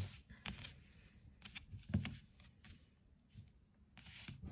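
Faint handling sounds: a few light taps and rustles of hands moving small things on a tabletop, the sharpest tap at the very start.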